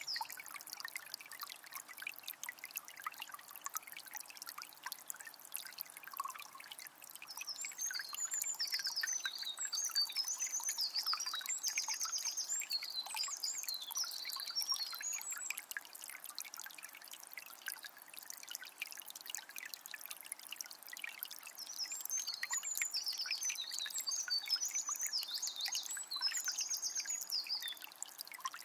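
Forest river flowing with a steady trickling, splashing rush, while a songbird sings two long bouts of quick, high twittering phrases, one from about a quarter in to the middle and another near the end.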